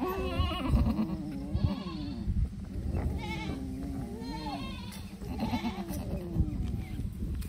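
Goat bleating, a string of short wavering calls about one a second, from a doe that has just kidded and her wet newborn kid.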